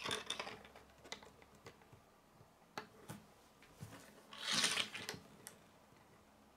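Small plastic Lego bricks clicking and tapping as they are handled, snapped together and set down on a wooden table. There is a cluster of clicks right at the start and a louder rustle of handling about two-thirds of the way in.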